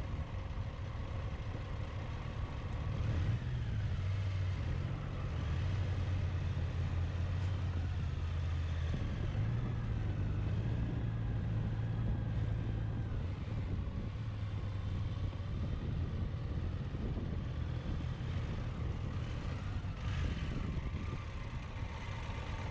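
Car engine and road noise heard from inside the cabin while driving, a steady low drone that grows louder about three seconds in as the car picks up speed.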